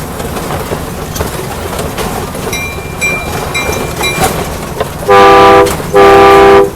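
A train bell rings several times, then a locomotive horn sounds two long, very loud blasts over a steady rumble.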